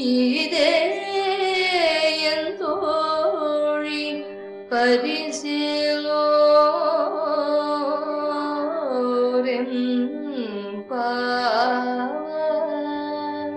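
Carnatic-style singing of a Tamil devotional hymn verse over a steady drone, in three long melodic phrases with short breaks about a third of the way in and near three-quarters.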